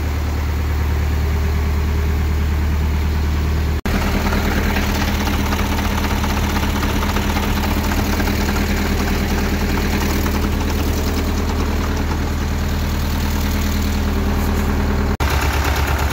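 1959 Case 800 tractor's diesel engine running at a steady idle, having just come to life after its fuel system was primed. The sound drops out for an instant twice.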